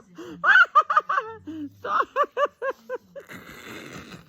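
A person giggling in a quick run of short bursts, then a breathy, hissy stretch about three seconds in.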